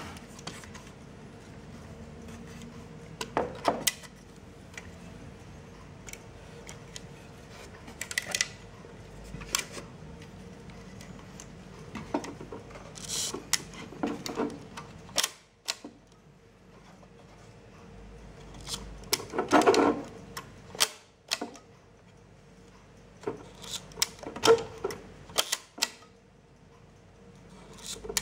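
Hands working a 1952 Belfoca folding rollfilm camera: a string of small sharp mechanical clicks and clatters from its metal fittings and lens shutter controls, with several louder clusters of knocks at intervals.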